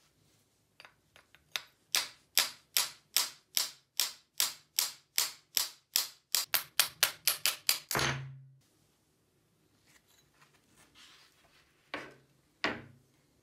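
A fast run of about twenty short, sharp strokes, roughly three a second, as a stuck wooden file-type handle is worked back and forth off the rusted tang of an old hacksaw. The run ends in one longer, heavier sound as the handle comes free. Two knocks follow near the end.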